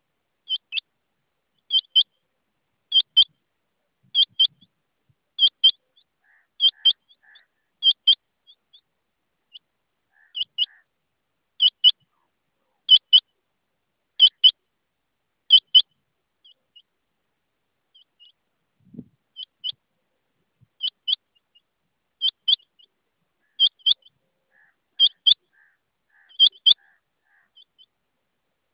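Rain quail calling: sharp, high double notes repeated about once a second, in a long series that breaks off for a few seconds in the middle and then resumes.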